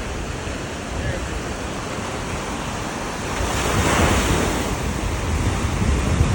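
Waves washing on the shore, one surging in about three and a half seconds in and fading after, with wind rumbling on the microphone.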